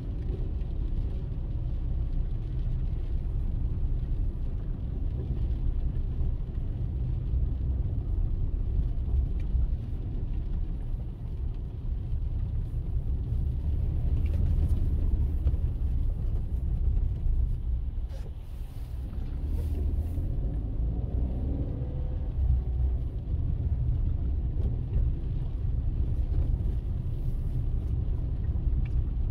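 Car driving, a steady low rumble of engine and road noise. It dips briefly about two-thirds of the way through, then a rising engine note follows.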